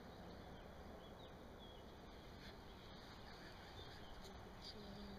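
Faint bird chirps, short and scattered, over a quiet steady outdoor hiss.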